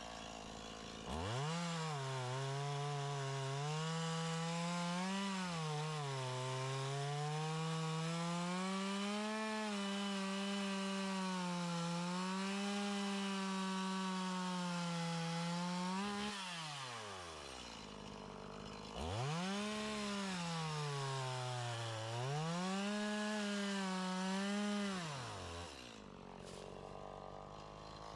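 Chainsaw revved up about a second in and held at high speed, its pitch dipping and recovering as it cuts into wood, then let down to idle after about fifteen seconds. It is revved again a few seconds later for a second, shorter run of cutting and drops back near the end.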